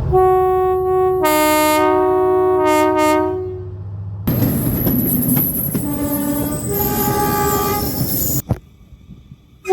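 Train horns sounding in two notes, low and high: a long blast with both notes overlapping, then, after a cut, a train running past with shorter low and high blasts. Near the end the sound drops away to a quiet gap.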